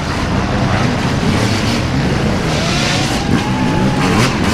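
Several enduro dirt bike engines revving up and down as the bikes ride through a muddy water hole, with mud and water splashing.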